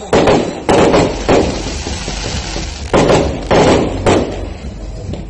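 Aerial fireworks bursting: six loud bangs, three in quick succession, then three more after a short pause, each fading out quickly.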